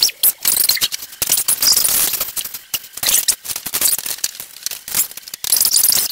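Computer keyboard hammered rapidly, a dense clatter of key clicks, played back sped up.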